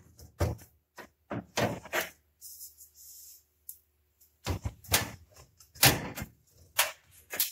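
Aluminium mesh grease filters being unlatched and pulled out of a range hood: a series of sharp metal clicks and clatters, with a light scraping slide in the middle and a denser burst of knocks near the end as a panel is lifted down.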